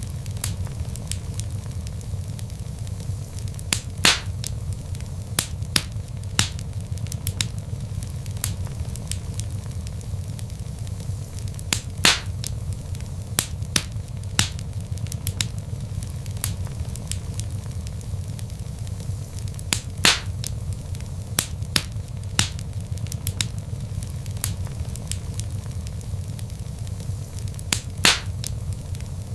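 Log fire crackling in a fireplace: a steady low rumble under frequent sharp crackles, with a louder pop about every eight seconds.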